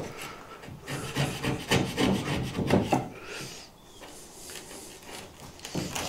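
A wood chisel pushed by hand paring out a hinge rebate in a timber door frame: several short scraping strokes as the blade shears off chips, then quieter near the end.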